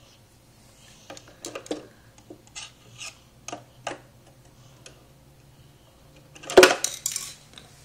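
A child's toy tool clicking and clacking as it is worked, with a string of sharp clicks and then a louder clatter about six and a half seconds in.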